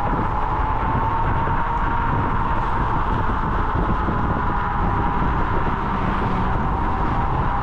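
Kaabo Wolf King GT electric scooter's dual hub motors whining under way, a single tone that climbs a little in pitch over the first couple of seconds and then holds steady. Wind rushes over the chest-mounted microphone underneath.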